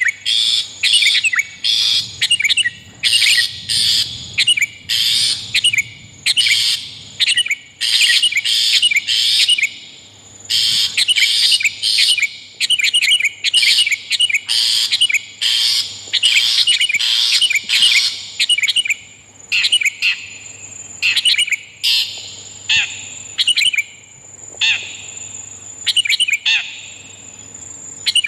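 Bird-trapping lure recording of long-tailed shrike and sooty-headed bulbul calls: rapid series of short, harsh calls, several a second, with brief pauses between runs. A thin, steady high tone sounds under the calls in the second half.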